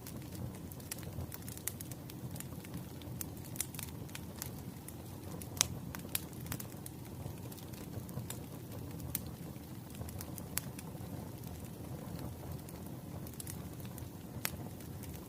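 Wood fire burning: a steady low rumble of flames with frequent sharp crackles and pops from the firewood, one louder pop about five and a half seconds in.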